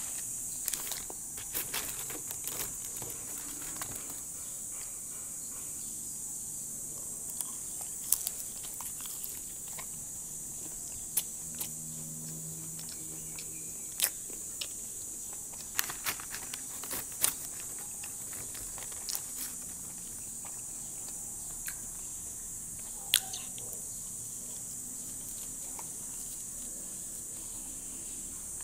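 A person eating fries: scattered sharp clicks of chewing and mouth sounds, with an occasional rustle of the paper fries wrapper, over a steady high hiss.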